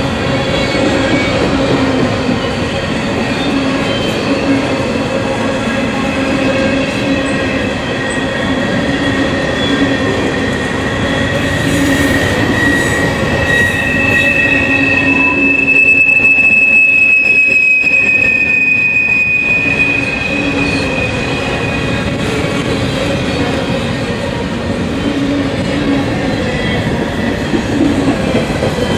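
Freight train's container flatcars rolling past with a steady rumble and clatter of wheels on rail. A high, drawn-out wheel squeal builds through the middle and dies away about two-thirds of the way through.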